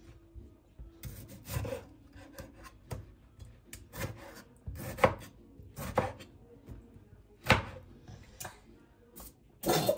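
Knife cutting tomatoes on a chopping board: irregular sharp knocks of the blade hitting the board, roughly one a second, with faint rubbing between them.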